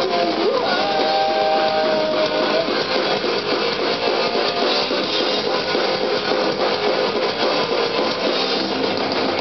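Punk rock band playing live: loud electric guitars over drums in an instrumental stretch of the song.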